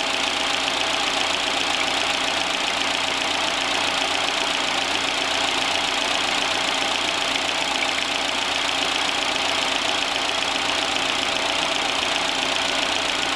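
Citroën C3 1.5 engine idling steadily under the open hood, a constant even hum and hiss with no change in pitch or level, run to push air out of the cooling system while coolant is being refilled.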